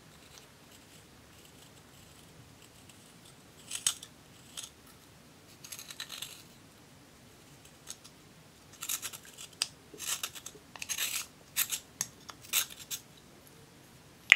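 A small metal spatula scraping and crumbling pressed silver eyeshadow out of its plastic compact: short, dry scratching strokes, a few at first, then a quick run of them in the second half.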